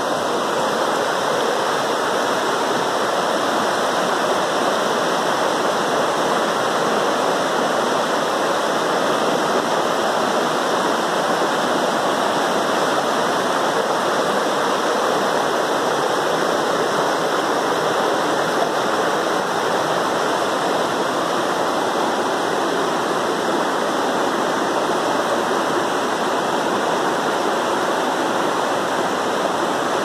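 Shallow rocky stream rushing over and between boulders in small rapids: a steady, unbroken rush of water.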